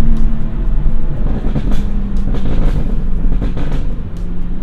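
BMW M240i's B58 turbocharged straight-six running on a burble exhaust tune: a steady engine note, then a run of exhaust pops and crackles from about a second and a half in until near the end.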